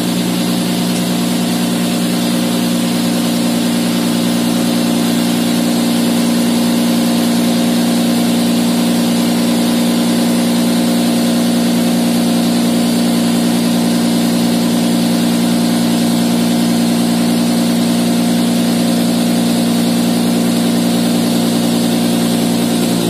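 Cotton candy machine running, its motor and spinning head spinning out sugar floss with a loud, steady hum of several tones.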